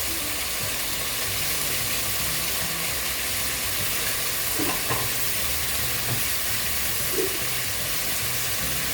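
Chicken pieces frying in hot oil in a kadai with a steady, even sizzle. A few faint knocks come about halfway through and again near the end.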